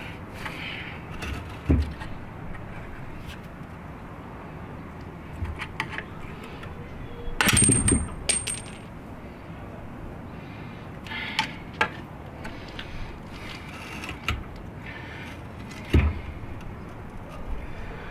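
Metal parts and tools clinking and clanking as they are handled on a work surface: scattered knocks, with a louder cluster of clanks and a brief metallic ring about halfway through.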